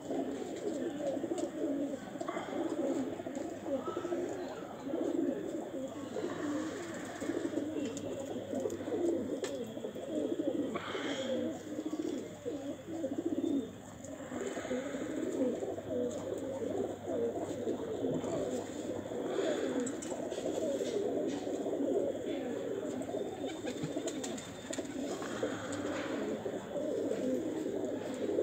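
A large flock of domestic pigeons cooing together, many low coos overlapping into a continuous rolling murmur.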